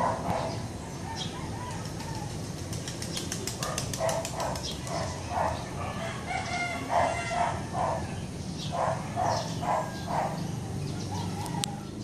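Roosters crowing several times in broken, repeated calls, over a steady low hum. A quick run of ticks comes about three seconds in.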